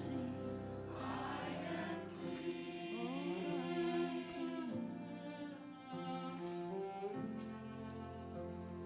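Church choir performance music: sustained string chords with a melody line rising and falling over them.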